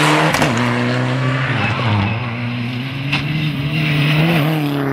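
Mitsubishi Lancer Evolution rally car's turbocharged four-cylinder engine running hard through a stage, tyres skidding on loose gravel. The engine note holds steady, drops about two seconds in and climbs back, with a sharp crack about three seconds in.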